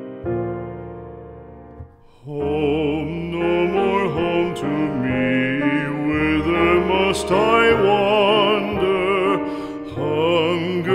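Background music: a slow song with piano. A piano chord fades away, then about two seconds in a singer with a wide vibrato comes in over the accompaniment.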